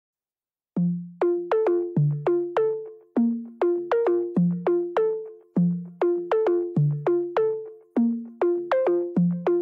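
Background music starts about a second in: a synthesizer melody of short notes that die away quickly, in a steady bouncy rhythm.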